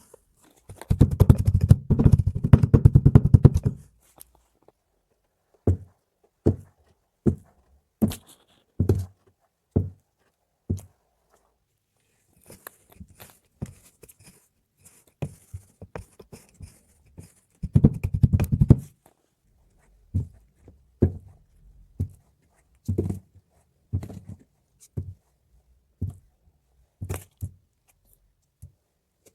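Kinetic sand being worked by hand and tool: two stretches of dense, rapid crackling, one a second in and one near the middle, and between and after them single soft thuds about a second apart.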